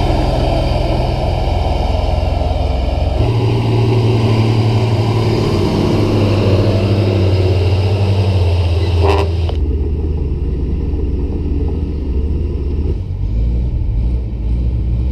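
Diesel engines of Hino hauling dump trucks running under load as they drive past on a dirt haul road. The sound changes abruptly about three and nine and a half seconds in, with a brief sharp noise just before the second change. Near the end a crawler bulldozer's engine runs as it tows a loaded truck up the slippery road.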